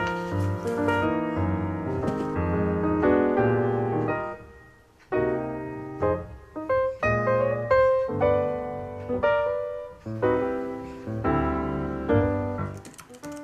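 Background piano music, single notes and chords, with a brief pause about five seconds in. A run of quick clicks starts near the end.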